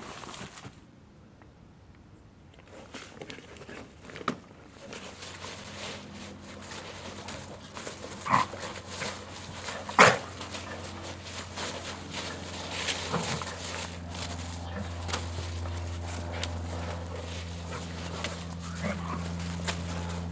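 Briards romping in dry autumn leaves: paws scuffling and rustling through the leaf litter, with two short, sharp barks about eight and ten seconds in, the second the loudest. A steady low hum sets in about five seconds in and gets louder.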